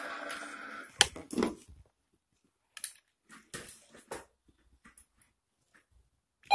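Treat & Train remote treat dispenser whirring as it dispenses kibble, stopping about a second in. Then two sharp clicks and crunching as a Newfoundland puppy eats kibble from its plastic tray, with scattered small clicks afterwards. A beep, the dispenser's signal tone, starts right at the end.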